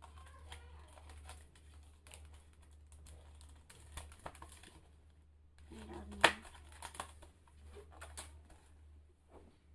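Handling of a round woven rattan bag: scattered light clicks and rustles from the stiff woven shell and its fastening, with one sharper knock about six seconds in. A steady low hum runs underneath.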